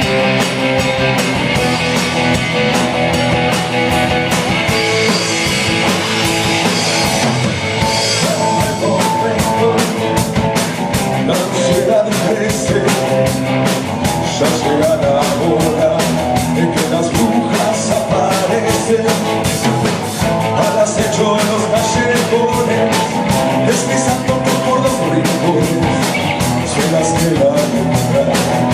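Rock music with electric guitar and a steady drum-kit beat.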